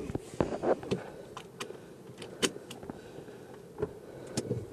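Irregular clicks, knocks and rustles of handling as a clip-on microphone is fitted and fumbled with in a car whose engine is off.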